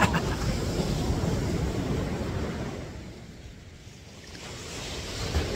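Ocean surf washing up the beach, fading away in the middle and building again near the end, with wind rumbling on the microphone.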